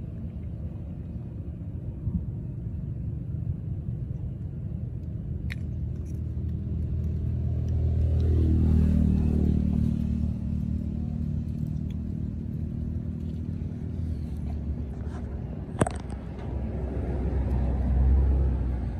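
Low rumble of a passing motor vehicle's engine, swelling to its loudest about eight to nine seconds in as its pitch shifts, then swelling again near the end. A sharp click about sixteen seconds in.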